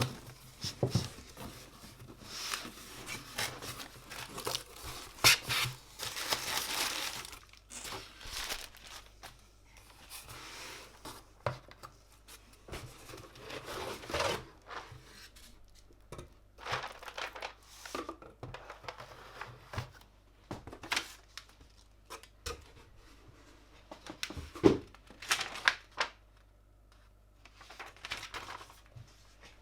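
Packaging being handled and torn open: irregular crinkling and tearing of wrapping, with scattered sharp clicks and knocks.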